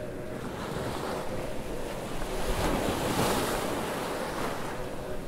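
Steady hiss of rain, swelling louder for about a second halfway through.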